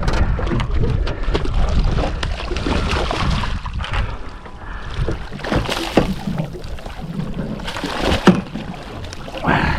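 Water sloshing and scattered knocks in and around a small fishing boat, with a sharp knock about eight seconds in.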